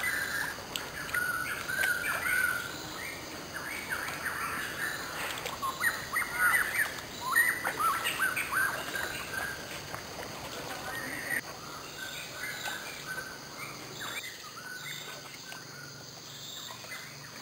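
Birds chirping: many short, quick calls, busiest in the first eleven seconds or so and thinning out toward the end.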